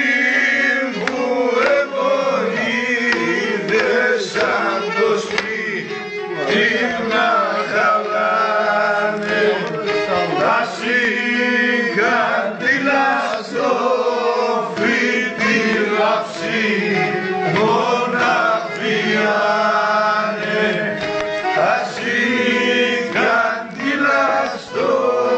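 Pontic lyra (kemençe) being bowed, playing a wavering melody over steady drone notes.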